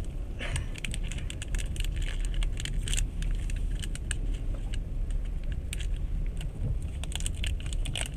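Coins jingling and clicking in quick, irregular bursts as money is counted out to pay. Under them runs the steady low rumble of the moving passenger train.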